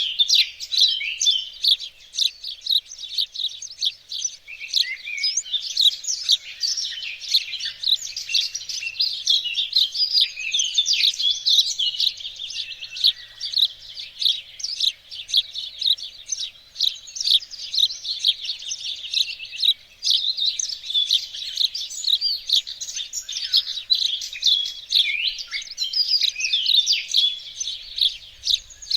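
Several songbirds singing and chirping at once in a dense, unbroken chorus of quick high chirps and trills.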